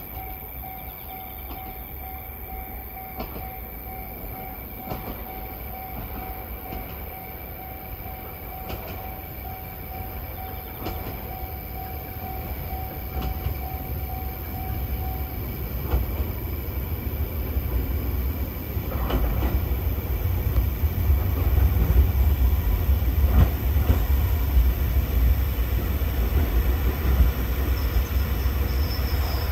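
JR Hokkaido H100 diesel-electric railcar approaching and pulling into the station. Its low engine and running rumble builds steadily through the second half, with a few clacks of wheels over rail joints. Over the first half a level crossing bell rings steadily and stops about halfway through.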